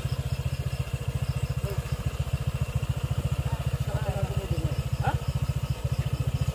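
Honda PCX scooter's single-cylinder engine running at low revs, a steady rapid low pulse. A faint high chirping repeats over it for a few seconds at the start and again about five seconds in.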